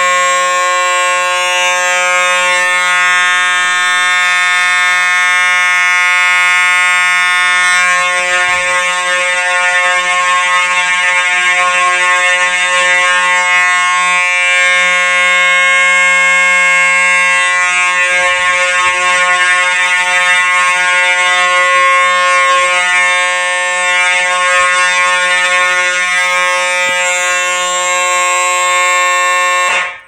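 Simplex 4903 electromechanical fire alarm horns sounding continuously, a loud, steady blare with no pulsing: the continuous general-alarm signal from the fire alarm panel. The sound cuts off suddenly at the end.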